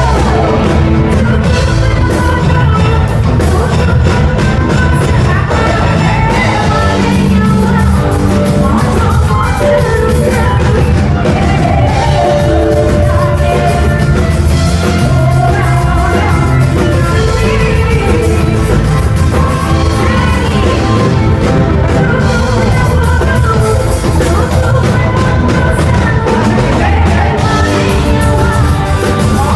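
Live band playing a dangdut song: female vocals over electric guitars, bass and drums, loud and continuous with a steady beat.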